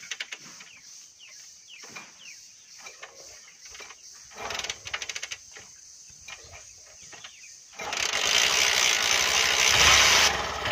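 Motorcycle being kick-started: the kick lever is stamped down several times with ratcheting clicks and rattles, then the engine catches about eight seconds in and runs loudly, with a deeper rumble near the end.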